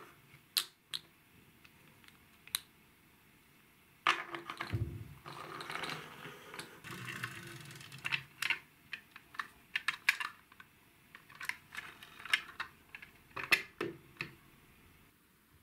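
Small plastic toy vehicles being handled and set down on a tabletop: scattered sharp plastic clicks and taps, with a few seconds of scraping and handling noise and a low thump in the middle, then a quick run of clicks and taps as a toy truck is positioned.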